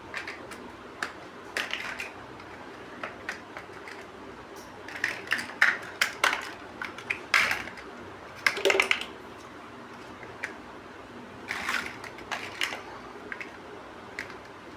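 Plastic building bricks clicking and snapping together as they are handled and pressed into place: irregular sharp clicks, some in quick clusters.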